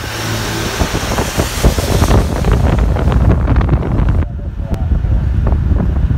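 Low rumble of a vehicle driving, with wind buffeting and crackling on the microphone; the hiss drops away suddenly about four seconds in.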